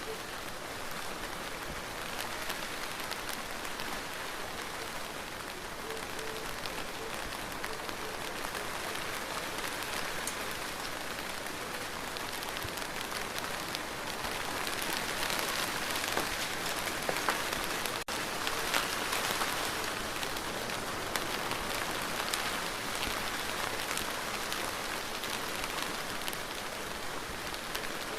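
Steady rain falling, a dense patter of drops on surfaces, swelling a little louder a bit past halfway.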